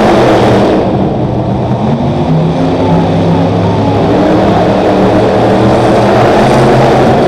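Monster truck engine running loud, its revs climbing and shifting in the middle, echoing around the indoor arena.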